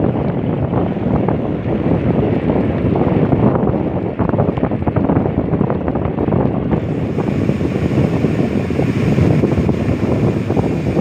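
Wind buffeting the microphone of a moving bike, a steady rough rush, with road and vehicle noise underneath.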